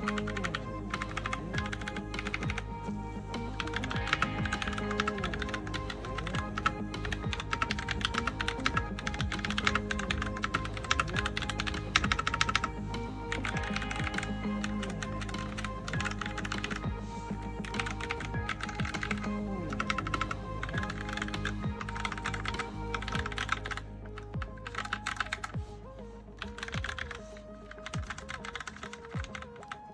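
Typing on a Razer BlackWidow Lite mechanical keyboard with Razer Orange tactile switches: a fast, irregular run of key clicks over background music. The typing gets quieter and sparser over the last several seconds.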